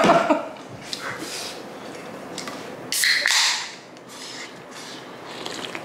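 Aluminium drink can being opened about three seconds in: the tab cracks and the can lets out a short fizzing hiss, with a few light handling clicks before it.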